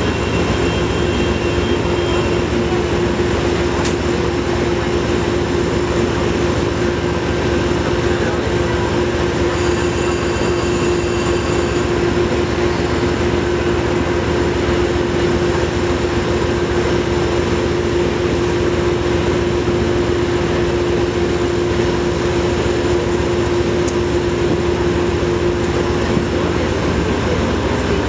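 Metro-North train of Shoreliner coaches standing at the platform, giving a steady, loud hum with one constant tone. A high-pitched tone sounds for a couple of seconds about ten seconds in.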